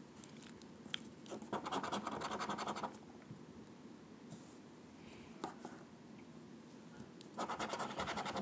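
A scratch-off lottery ticket's coating being scraped off in quick back-and-forth strokes. There are two bursts: one about a second and a half in, lasting about a second and a half, and another near the end.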